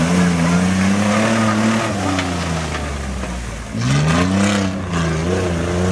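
Lifted mud truck's engine revving as it drives through a mud bog. The pitch wavers, sags about three and a half seconds in, then climbs again as the throttle is opened, with a brief hiss of spray.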